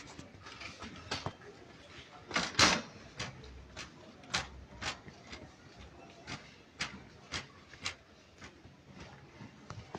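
Metal wire shopping cart rattling as it is pushed along, with sharp clicks about twice a second and one louder clatter about two and a half seconds in.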